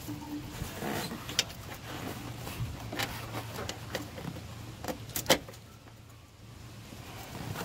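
Hands handling a headlight bulb's plastic wiring connector and retaining clip deep in an engine bay: a series of sharp plastic clicks and knocks, the loudest a little past five seconds in, over a low steady hum.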